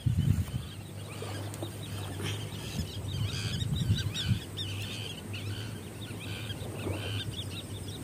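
Birds chirping in a rapid series of short calls, over a low steady rumble of wind on the microphone.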